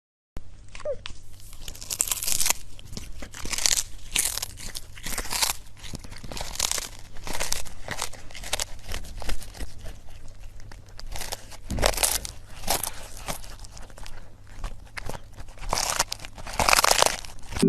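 Irregular crunching and crinkling, many short crackles in quick, uneven succession.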